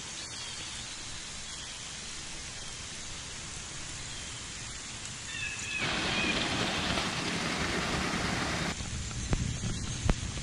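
Steady rushing hiss of water. Between about six and nine seconds it swells into the louder splashing rush of a small waterfall spilling over rocks, then drops back, with a few light knocks near the end.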